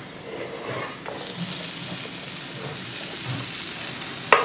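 Chopped vegetables hitting a hot non-stick pan of melted butter and onions start sizzling about a second in, a steady hiss that carries on. A sharp knock near the end.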